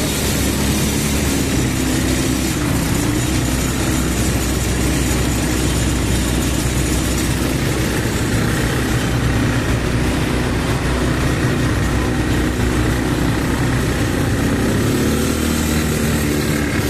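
ATV engine running steadily at low speed, its pitch rising near the end.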